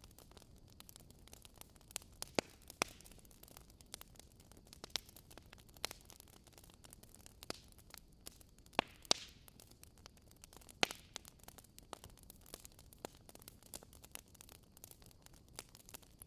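Wood fire crackling: irregular sharp pops and snaps over a faint steady hiss, the loudest a little after two seconds, about nine seconds and about eleven seconds in.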